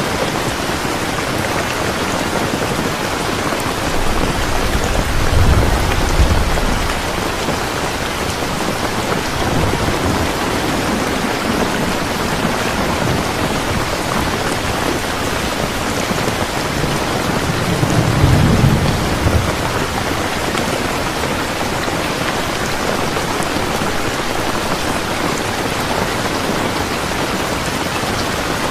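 Steady rain falling, with a low rumble of thunder swelling about five seconds in and again about eighteen seconds in.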